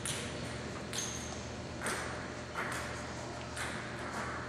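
Table tennis ball bounced by the server before serving: about five light, sharp taps roughly a second apart, over the low murmur of a spectator hall.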